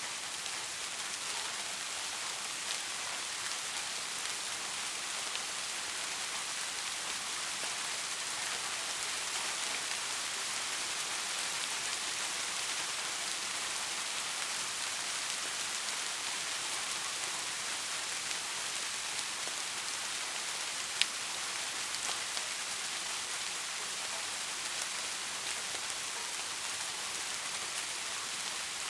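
Steady rain falling on surfaces, an even hiss of many drops. A single sharp click about two-thirds of the way through.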